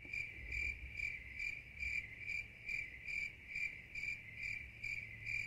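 Cricket chirping sound effect, a comic 'crickets' pause: an even pulse of about three chirps a second that cuts in and out abruptly.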